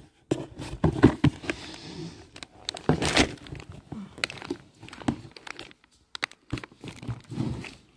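Plastic dog-treat packets crinkling and rustling as they are handled. Irregular clicks and knocks come from the containers being moved, the sharpest about three seconds in.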